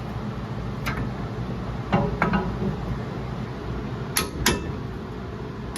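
Hand tools clicking and clinking against metal while a brake caliper bracket bolt is tightened. About five sharp metallic clicks, the last ones in close pairs.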